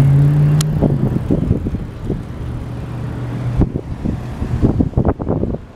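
Wind buffeting the microphone in irregular gusts while riding a bicycle, over a steady low engine hum from a motor vehicle that fades after the first second and returns a little after the middle.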